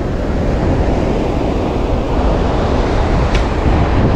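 Surf washing on the shore, with wind rumbling on the microphone. A short click sounds about three seconds in.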